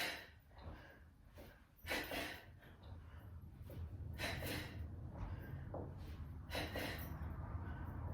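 A woman breathing hard under exertion, with short sharp exhales about every two seconds, over a low steady hum.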